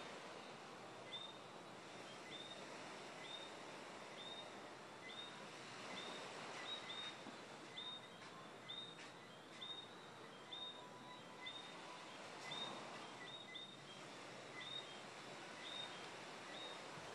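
Nighttime chorus of small creatures that the speaker calls 'car alarm bugs': short, high, upward-hooking chirps repeated irregularly about once or twice a second, faint, over a soft hiss of night noise.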